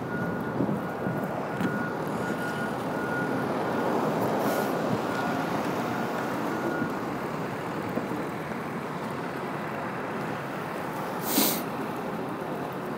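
Outdoor street noise of vehicles running, with a reversing alarm beeping at an even pace through the first half and then stopping. A short, sharp hiss comes about eleven seconds in.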